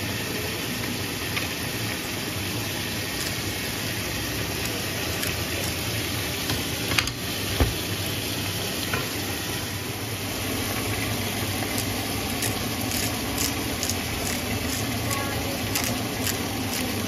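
Chicken pieces and chopped onion sizzling steadily in a non-stick frying pan, stirred with a wooden spoon, with scattered sharp clicks, most of them in the second half.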